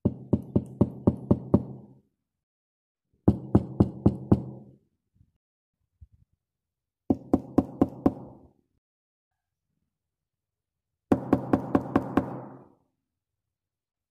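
Knocking in four bursts of six or seven quick knocks, with a pause of about two seconds between bursts. Each knock carries a short, low, hollow ring.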